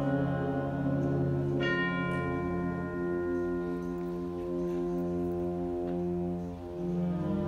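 Concert band holding soft sustained wind chords, with a single bell note struck about a second and a half in that rings on and fades over several seconds.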